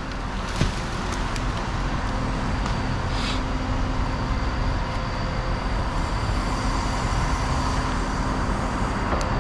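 Steady drone of motor vehicles and engines, like road traffic, with a single sharp click about half a second in.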